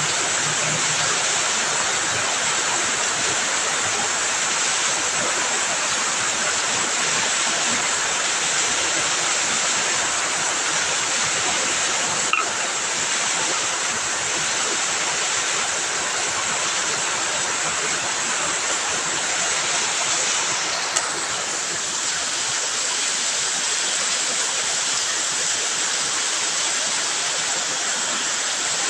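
Heavy rain pouring down in a steady, even hiss, with two brief clicks, one about midway and one about two-thirds of the way through.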